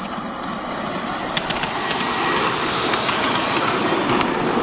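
Miniature live-steam locomotive passing close by: steady steam hiss with its wheels clicking over the track, growing loudest about halfway through and then easing as it moves away.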